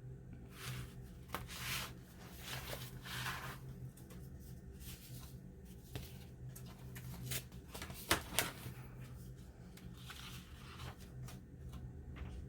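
Paper and card being handled, rustling and shifting in soft irregular bursts with a few light clicks and taps.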